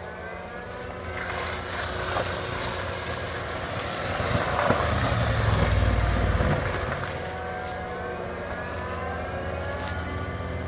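Caterpillar skid steer with a mulcher attachment running steadily, its engine pitch rising and falling as it works; the low rumble swells for a few seconds about halfway through, then eases.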